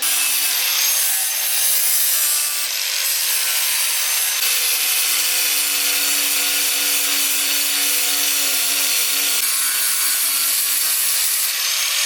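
Power sander working over the sheet metal of a car's engine bay, a steady rasping hiss over a motor hum, starting abruptly. This is the bay being sanded down, welds smoothed, in preparation for primer.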